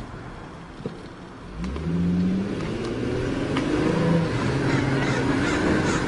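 A motor vehicle engine running, getting louder and revving about a second and a half in, over a steady noisy hiss.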